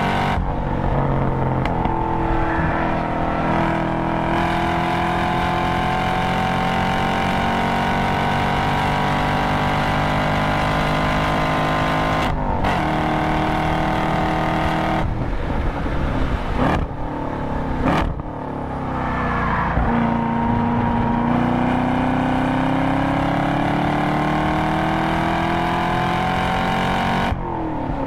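2022 Camaro SS 1LE's LT1 6.2-litre V8, heard from inside the cabin, pulling hard with its pitch rising through the revs. There is an upshift about twelve seconds in, then a string of downshifts under braking a few seconds later. After that the engine pulls and climbs again, with another shift near the end.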